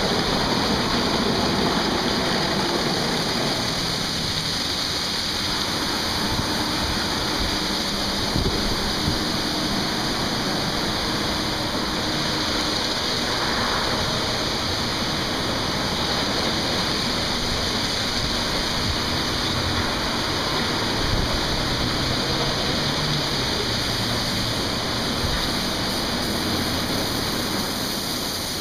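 Automatic car wash running: a steady rush of water spraying over a foam-covered car while the rotating brushes scrub it.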